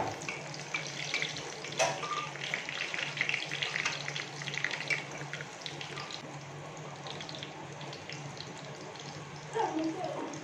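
Water running from a kitchen tap into the sink while things are washed under it, with spattering and small clinks, and a knock about two seconds in.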